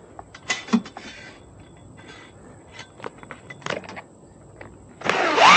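Scattered light clicks and knocks of hardware being handled. About five seconds in, a loud scraping squeal starts, its pitch wavering down and up.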